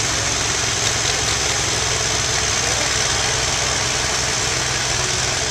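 International 1466's turbocharged six-cylinder diesel running steadily at low revs, near idle, as the tractor creeps along.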